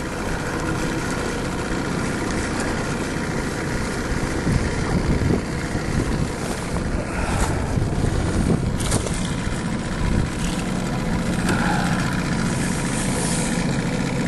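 Wind buffeting the microphone: a steady, heavy rumbling noise with irregular gusts.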